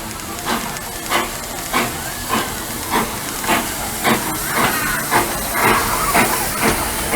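Narrow-gauge steam locomotive of the Walt Disney World Railroad chuffing steadily, a regular beat of hissing exhaust puffs under way at low speed, slightly quickening later on.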